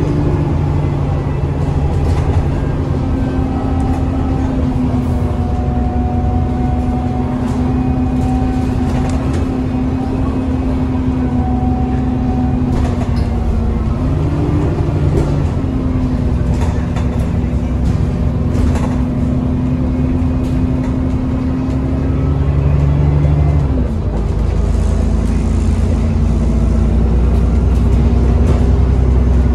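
Alexander Dennis Enviro400 E40D double-decker bus heard from inside on the move: a steady drone with a whining tone, which the title puts down to a turbo leak and the cooling fans. The pitch rises briefly about halfway through. Near the end the whine drops and a deeper rumble grows louder.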